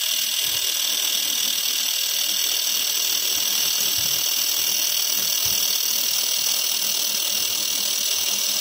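Handheld fiber laser welder with wire feed running a continuous weld on a steel joint: a steady high-pitched hiss with faint, even whining tones that holds level throughout.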